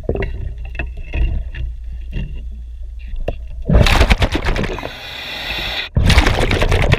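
Heard underwater: a scatter of sharp clicks and knocks from a wrench working on a boat's propeller nut, then two loud rushes of exhaled bubbles from a diver's scuba regulator, about four seconds in and again about six seconds in.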